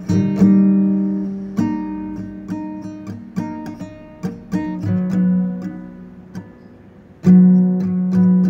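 Acoustic guitar music: chords strummed and picked and left to ring out, fading to a quieter passage, then a loud strummed chord about seven seconds in.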